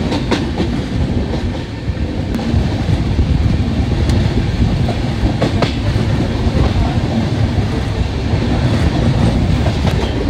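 Express passenger train running at speed: a steady low rumble of wheels on the rails, with scattered clicks as the wheels run over the track.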